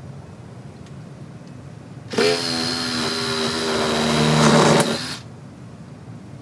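Yellow cordless drill/driver running for about three seconds, driving a screw into the bender board edging; it starts abruptly, grows louder toward the end, then stops.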